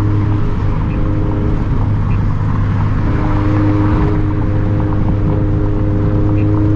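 Turbocharged Scion FR-S flat-four engine and titanium center-exit exhaust at a steady cruise, heard from inside the cabin as an even low drone. A higher hum joins about three seconds in.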